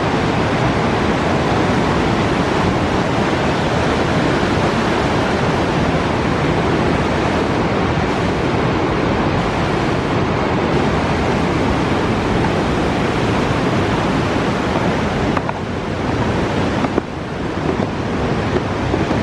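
Fast-flowing Chattahoochee River water rushing, a loud, steady roar that eases briefly near the end.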